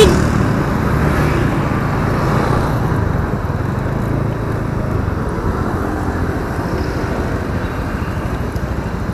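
Honda automatic scooter's engine running as the rider slows to a crawl, with road traffic around. The engine is loudest around the very start, where a short loud sound peaks, then eases off a little.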